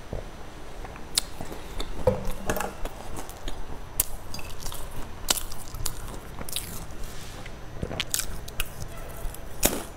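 Close-miked biting and chewing of baked snacks, heard as irregular crisp crunches and clicks.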